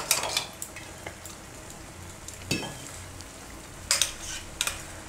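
Metal spoon stirring and scraping inside a stainless-steel mixer-grinder jar, rinsing leftover coriander chutney out with water: a series of sharp clinks of spoon on steel, the loudest about four seconds in. A faint steady sizzle runs underneath from the gravy frying on the stove.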